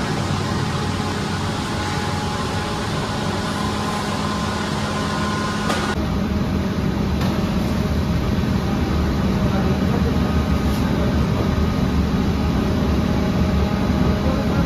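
Steady low drone and hum of bakery machinery. The sound changes abruptly about six seconds in, where the faint high tones drop away and the low rumble grows a little louder.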